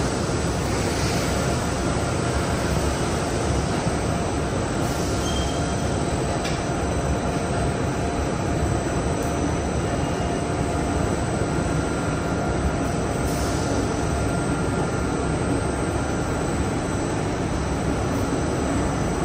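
Rockwool sandwich panel production line running, its crawler-type double-belt press turning: a steady mechanical rumble with faint, steady high whines over it.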